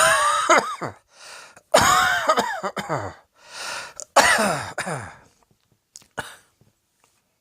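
A person coughing hard in three fits, each a run of rough voiced coughs, with a drawn breath in between. The coughing dies away about five seconds in.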